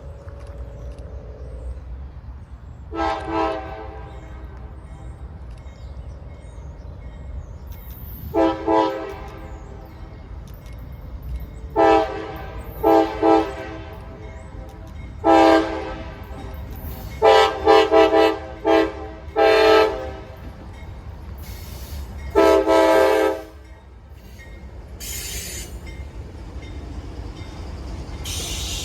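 CSX locomotive's multi-chime air horn sounding a long series of blasts, some short and some held for about a second, over the steady low rumble of the train.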